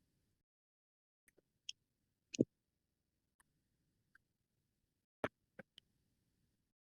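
A few scattered short clicks and light knocks, typical of parts and housings being handled on an LED light assembly line. The loudest comes about two and a half seconds in, and three quicker ones follow near the end.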